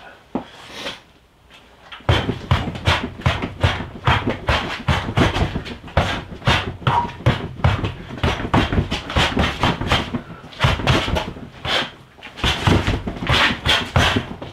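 Rapid strikes, gloved punches and knees, landing on a freestanding rubber torso training dummy, about three to four hits a second. The flurry starts about two seconds in and runs with brief pauses.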